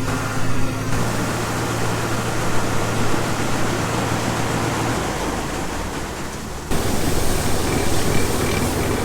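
Tractor running a PTO-driven grain auger while oats pour out of a wagon into it: a steady rushing noise over a low engine hum. The sound changes abruptly a few times, about a second in, about five seconds in and near the end.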